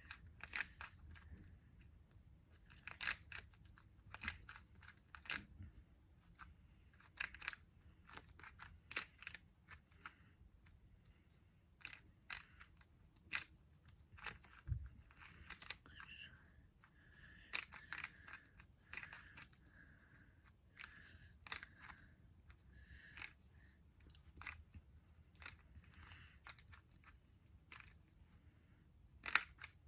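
Square-1 puzzle being turned and sliced by hand during a solve: quick, irregular plastic clicks and clacks, several a second.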